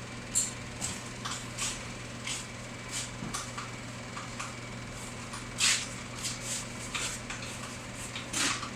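Irregular clicks, knocks and light rattles of parts and tools being handled while a car dashboard is taken apart, the loudest knock a little past halfway, over a steady low hum.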